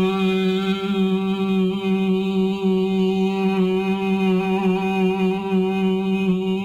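A voice holding one long, steady buzzing tone through pursed lips on a single pitch, loud and unbroken. It is a voice-therapy exercise for Parkinson's speech, done in the style of LSVT LOUD, that moves the buzz of the voice to the front of the face.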